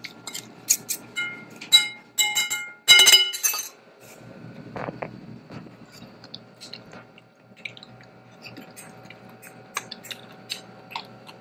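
Metal spoon and fork clinking and scraping against a ceramic bowl while tossing a sliced radish salad: a quick run of sharp, ringing clinks in the first four seconds, then only faint small clicks.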